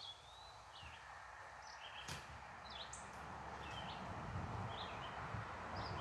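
Small wild songbirds at backyard feeders giving short, high chirps, one every half second to a second. Behind them a broad hiss and low rumble grows steadily louder.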